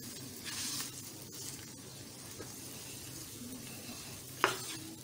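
A silicone spatula stirs and presses a rice-flour dough around a hot non-stick frying pan while the dough sizzles gently in ghee and water. A sharper scrape or tap comes about four and a half seconds in.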